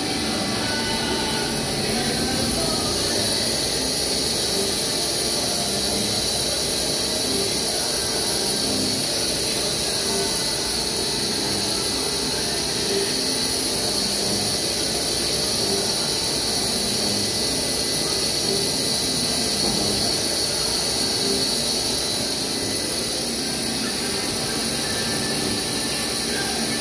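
CNC vertical machining centre milling a worm screw from polyethylene on its rotary axis, spindle turning at about 3000 rpm with flood coolant spraying on the cutter: a steady, high-pitched whine and hiss of spindle, cutting and coolant.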